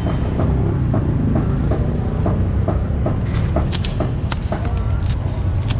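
Steady low rumble of street traffic with light, evenly spaced knocks, then sharp squeaks and clicks from about three seconds in as a styrofoam takeaway box is pressed shut.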